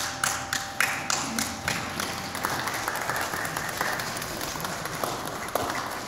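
Congregation applauding a handbell choir, at first in scattered single claps that fill in to steady applause about two seconds in. The last handbell tone fades out under the first claps.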